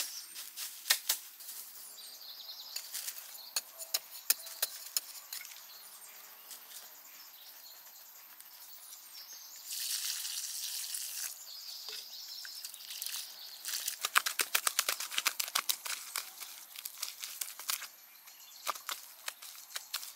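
Water poured from a clay pot onto loose dug earth, a splashing hiss about halfway through that lasts a second and a half. Around it come bursts of crackling and rustling from branches and soil being handled, and a steady high insect drone runs throughout.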